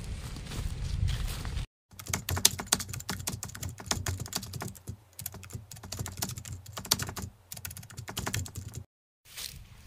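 A low outdoor rumble for the first second and a half cuts off abruptly. After a short gap comes a rapid, irregular run of keyboard typing clicks, a typing sound effect for on-screen text being typed out. It stops about a second before the end.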